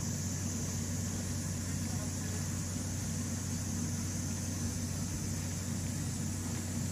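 Steady low mechanical hum with faint voices of people in the background.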